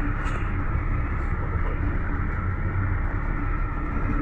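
Cabin noise inside a GAZ-A64R42 Next minibus on the move: a steady rumble of engine and road noise.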